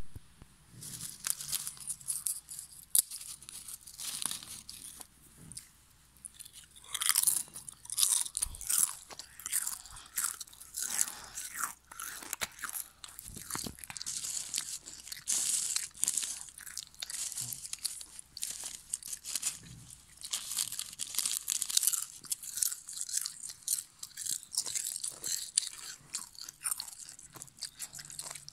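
Crisp potato chips crunching close to the microphone as they are bitten and chewed, in quick irregular crackles, with chips rustling against a foil packet as a hand picks through them. The crunching is sparse at first and turns dense about seven seconds in.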